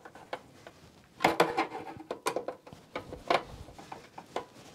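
Screwdriver driving the screws that hold a PCIe card's bracket to a PC case's expansion-slot frame: a string of irregular clicks, with a denser cluster a little over a second in.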